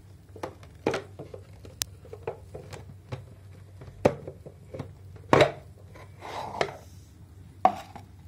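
Hard plastic clicks and knocks as the juice container is slid out of the front of a juicer and handled, with one louder knock about five seconds in.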